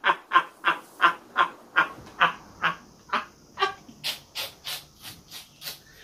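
Two men laughing hard: a long run of rhythmic bursts of laughter, about three a second, loudest at the start and tapering off.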